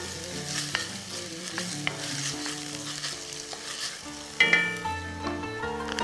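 Chopped red onion sizzling as it fries in olive oil, stirred with a wooden spoon that scrapes now and then across the enamelled pot. Background music comes in louder about two thirds of the way through.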